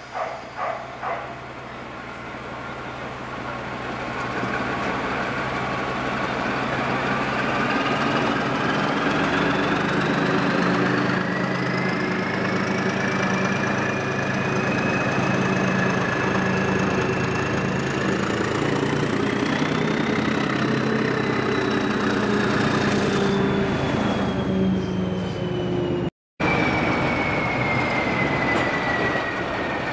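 British Railways Class 14 diesel-hydraulic locomotive, with its Paxman Ventura diesel, pulling away with a train: the engine opens up and the sound builds over the first several seconds, then holds steady while a whine glides up in pitch, peaks about two-thirds of the way through and then falls.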